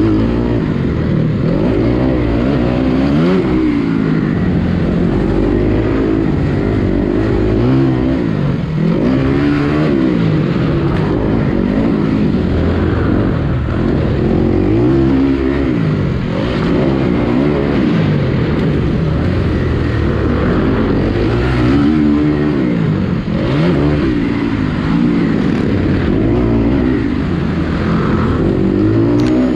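Motocross bike engine heard from on board while riding a dirt track, its pitch repeatedly climbing and dropping back every second or two as the throttle is opened and shut through the turns and jumps.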